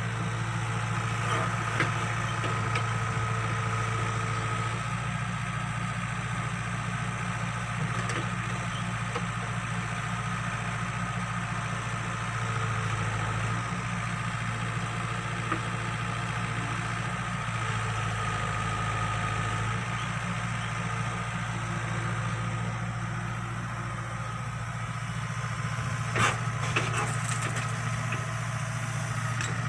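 Excavator's engine running steadily under digging work, its low hum shifting slightly a few times as the load changes. A couple of sharp knocks come near the end.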